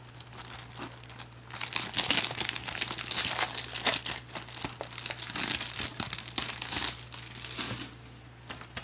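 Clear plastic shrink wrap being picked at and torn off a DVD case. Faint scratching gives way, about a second and a half in, to loud, busy crinkling and crackling of the wrap as it is peeled away, dying down near the end.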